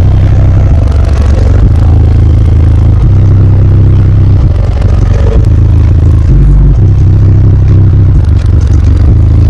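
Car audio system of six 15-inch SSA EVIL subwoofers playing deep bass at extreme volume, heard at the car's open window. The bass notes step between pitches every second or two and overload the recording.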